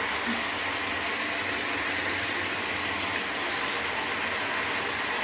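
Mixed vegetables sizzling steadily as they fry in an aluminium kadai on a gas stove.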